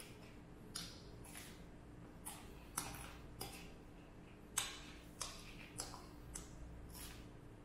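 Someone chewing crunchy fried food, most likely chicken nuggets: about a dozen short, crisp crunches and mouth clicks at irregular gaps of roughly half a second to a second.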